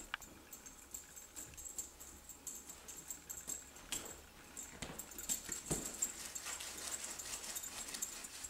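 Abyssinian cat clambering on a carpet-covered cat scratcher: scattered light knocks and scuffs, with a heavier thump a little past halfway.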